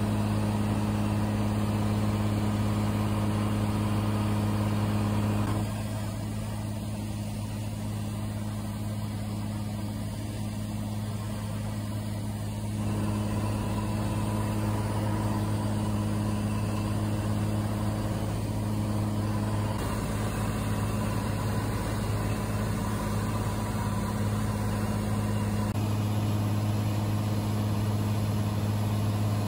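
Cessna 182's piston engine and propeller droning steadily in cruise flight, heard inside the cabin, with a deep steady hum and its overtones. The drone dips a little in loudness for several seconds about a quarter of the way in.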